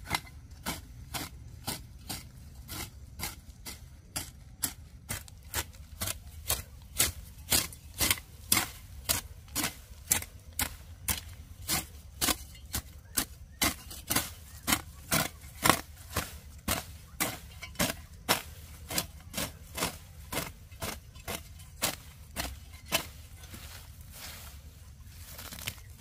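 A hand tool cutting or chopping in a steady rhythm, a little under two sharp strokes a second, stopping near the end.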